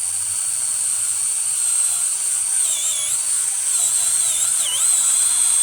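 Brushless battery chainsaw cutting into a tree trunk on the first cut of the felling notch. It gives a steady high whine, and the pitch dips briefly twice as the chain bites into the wood.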